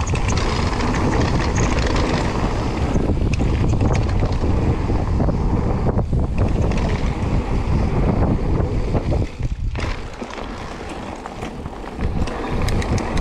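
Wind buffeting the microphone and mountain-bike tyres crunching over loose gravel on a fast descent, with scattered clicks and rattles from the bike. The noise eases for a couple of seconds near the end, then comes back.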